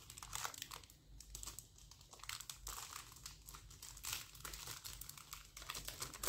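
Clear plastic wrapping around a chuda bangle set crinkling as it is handled and turned over: a faint, irregular crackling.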